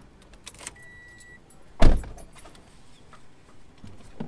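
Car keys jangling and clicking, a brief electronic beep, then a car door slamming shut about two seconds in, heard from inside the cabin and the loudest sound; a few light clicks follow.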